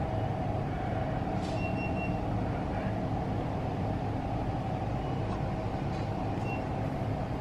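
Tommy car wash tunnel equipment running, heard through glass: a steady mechanical drone of motors, spinning brushes and water spray, with a couple of brief faint hisses.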